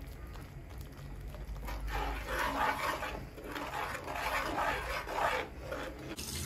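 Slotted metal turner scraping and stirring thick tomato sauce around a frying pan, a run of repeated scrapes starting a little under two seconds in and stopping shortly before the end.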